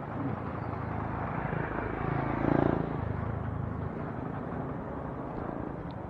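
Motorcycle engine running, with steady wind noise over it; the sound swells briefly about two and a half seconds in.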